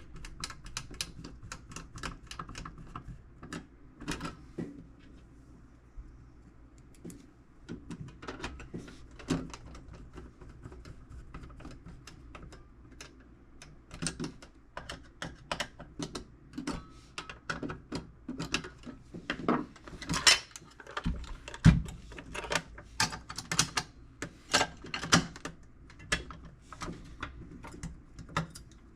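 Irregular sharp clicks and taps of small plastic and metal tool box parts being worked by hand while a spring-loaded piece is fitted. They are sparse at first and come thicker in the second half, with a dull thump about two-thirds of the way through.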